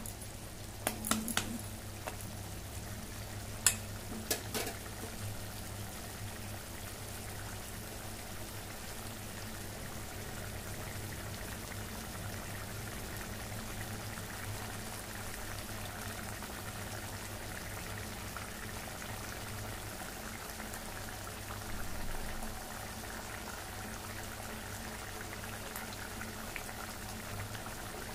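Fish-head curry bubbling at a boil on high flame in a metal kadai, with a few sharp clinks of a slotted metal spatula against the pan in the first five seconds.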